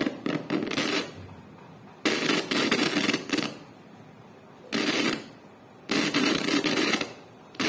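Crackling and scratching from an amplifier's loudspeaker as its faulty volume potentiometer is turned up and down. It comes in four bursts of about a second, with quiet gaps between.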